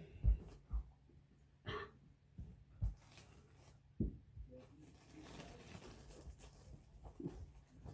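Couch parts being handled during assembly: a few dull thumps and knocks in the first four seconds, then a stretch of soft rustling.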